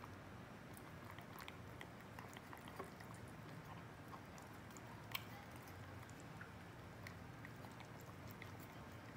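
Two cats eating wet food from bowls: faint, quick smacking, lapping and chewing with many small scattered clicks, the sharpest about five seconds in.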